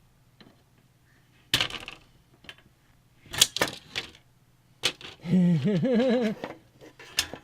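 Scattered sharp clicks and knocks of hard plastic and metal computer parts being handled: a fan and case pieces being fitted and set down. Near the middle a person's voice hums or murmurs briefly, wavering in pitch.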